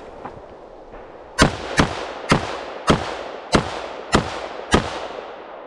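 Seven rifle shots in quick succession, roughly half a second apart, each followed by an echo that fades away.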